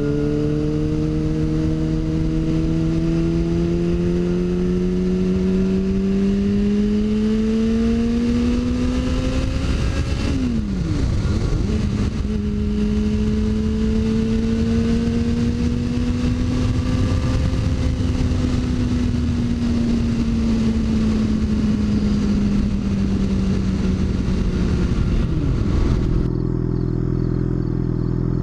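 Inline-four sport-bike engine running hard, its pitch climbing steadily for about ten seconds, then dropping suddenly and holding a fairly steady speed. Near the end the engine sound cuts off abruptly into a different steady low hum.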